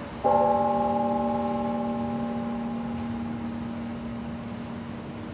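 A large church bell tolling: one stroke about a quarter second in, its deep hum and several higher tones ringing on and slowly dying away.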